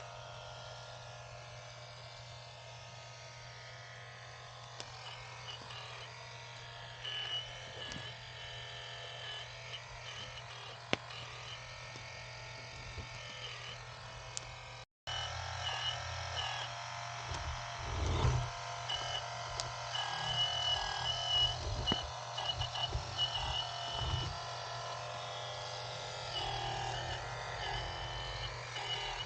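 Small electric hydraulic pump of a radio-controlled excavator running with a steady hum, and a high whine that comes and goes as the controls are worked. It drops out briefly about halfway and is louder and busier after that.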